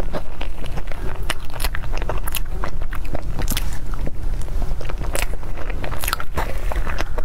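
Close-miked eating sounds: wet mouth clicks and chewing on a mouthful of chocolate mousse, mixed with a metal utensil scraping and tapping in a plastic cup. There are many short sharp clicks throughout, over a steady low rumble.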